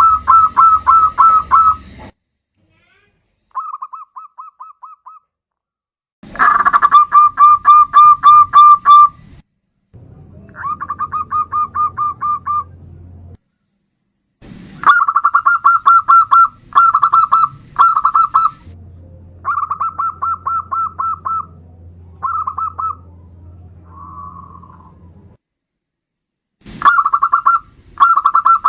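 Zebra dove (perkutut) singing: about eight phrases of rapid, staccato cooing notes, each lasting one to three seconds, with short breaks between.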